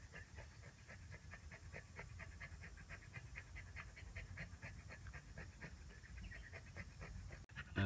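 A puppy suckling at its mother dog's teats: a quick, steady run of soft short smacks, about four a second, over a faint low rumble.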